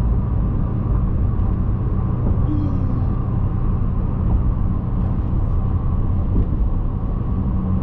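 Steady road noise inside a moving vehicle's cabin: a constant low rumble of tyres and engine at highway speed, with a steady low hum.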